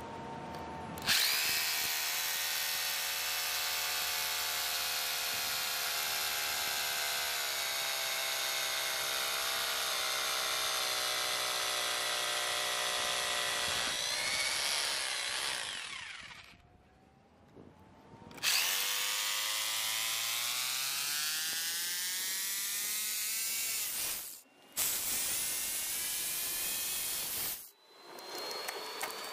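Teeno SDS Plus rotary hammer drill boring into concrete with an 8 mm masonry bit, its motor whining under load. It makes a long run of about fifteen seconds that winds down, then after a short pause a second run whose pitch rises as it spins up, and a brief third run.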